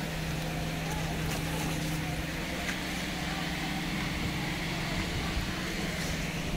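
Steady low mechanical hum of running machinery, with a few faint clicks.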